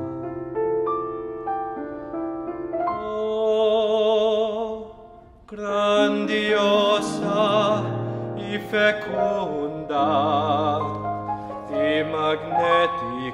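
Baritone singing in Spanish with a wide vibrato, over piano accompaniment in a classical art-song style. The piano plays alone at first, the voice comes in about three seconds in, breaks off briefly about five seconds in, then carries on in longer held notes.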